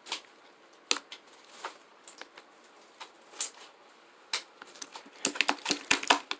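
Irregular small clicks and taps, spaced out at first and then bunching into a quick flurry of clicks near the end.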